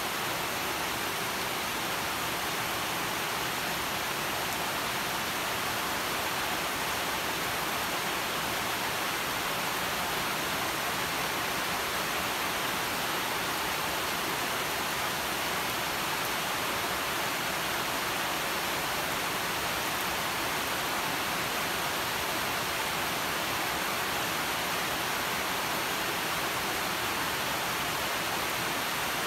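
Steady rain falling: an even hiss with no single drops or other events standing out.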